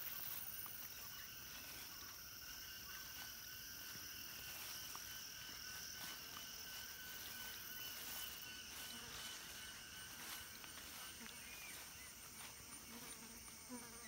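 Chorus of insects such as crickets or cicadas, a steady shrill drone in several high pitches at once.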